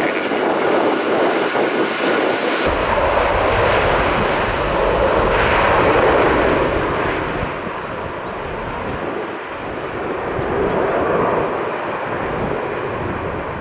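Airbus Beluga XL's twin Rolls-Royce Trent 700 turbofans at takeoff power, a loud, steady jet roar as the aircraft accelerates and lifts off. A deep rumble joins suddenly about three seconds in, and the roar is loudest about halfway through.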